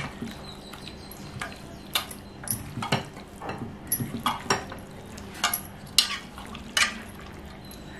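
Raw chicken pieces being mixed by hand with a wet marinade in a steel pot: soft squelching with irregular sharp clinks and knocks against the metal pot.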